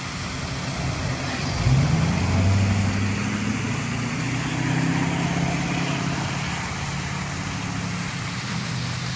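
A motor vehicle passes on the nearby road, its engine hum swelling to a peak about two seconds in and then fading slowly, over the steady rush of a small waterfall.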